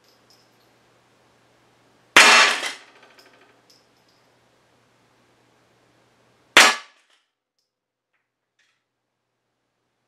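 Two single shots from a Remington 572 Fieldmaster .22 pump rifle, about four seconds apart, each a sharp crack with a short decay. A few faint clicks follow the first shot.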